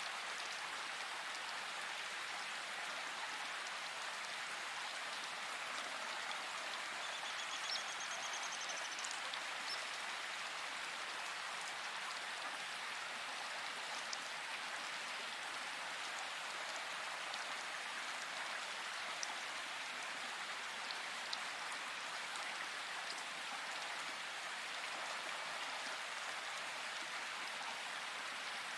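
Steady rain falling in a forest: an even hiss with scattered louder drops. A short high trill sounds about seven seconds in.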